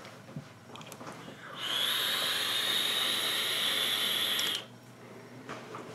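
A draw on a 454 Big Block rebuildable dripping atomizer (RDA): the fired coil and the air pulled through the airflow holes make a steady hiss with a high tone, starting about a second and a half in, lasting about three seconds and cutting off sharply.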